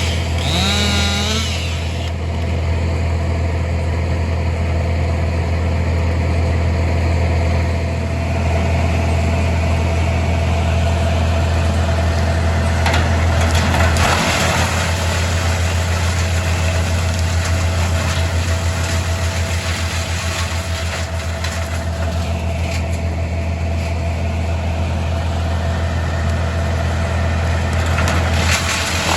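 An engine idling steadily, with an even low hum that takes on a pulsing beat from about halfway through.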